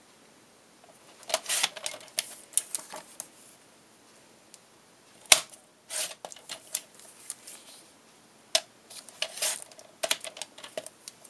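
Paper trimmer cutting cardstock: the cutter head slides along the rail in short rasping strokes, with scattered sharp clicks from handling the clear hinged cutting arm and one loud snap about five seconds in.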